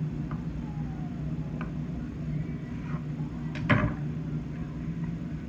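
A knife cutting a peeled hard-boiled egg on a wooden cutting board, with a faint click about one and a half seconds in and a sharper knock nearly four seconds in, over a steady low hum.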